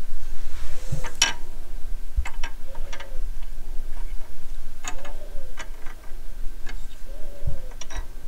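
Scattered light clicks and taps of small die-cast model wheels being set down and nudged on a glass shelf.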